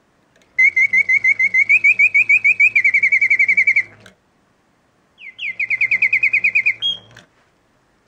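Antique French mechanical singing bird warbling: its bellows-blown piston whistle chirps in rapid repeated trills. There are two phrases, the first about three and a half seconds long, then a short pause and a shorter second phrase, each over a low steady hum.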